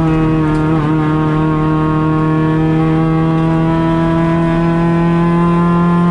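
Kia rally car's engine heard from inside the stripped cabin, running hard at high revs under full acceleration, its pitch slowly climbing.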